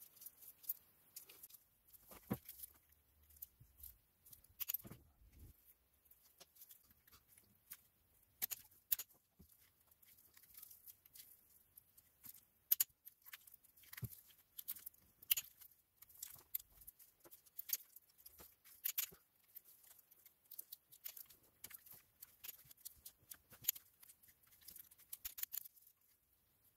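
Torque wrench ratcheting in short runs of light, irregular clicks as the oil cooler's T30 bolts are tightened to 12 Nm.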